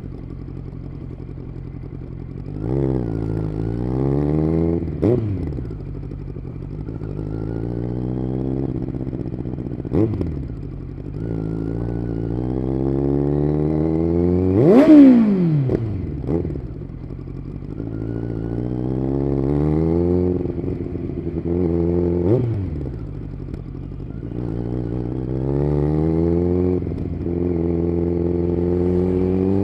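Kawasaki Z900's inline-four engine through an SC Project aftermarket exhaust, accelerating hard and shifting up through the gears. The pitch climbs and drops sharply at each shift, about half a dozen times, and is loudest in a sharp rev about halfway through.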